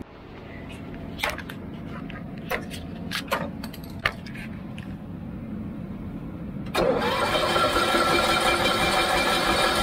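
The engine of a 1984 Cushman three-wheel utility vehicle being started on a temporary fuel-jug feed after carburetor and fuel-pump work. A few clicks and knocks come first, then about seven seconds in the engine suddenly turns over loudly and steadily.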